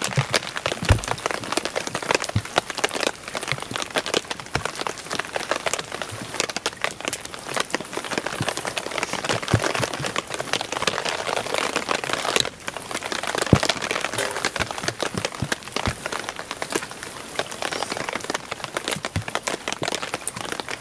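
Rain pattering steadily on a nylon tarp overhead, a dense hiss of drops with many small individual taps.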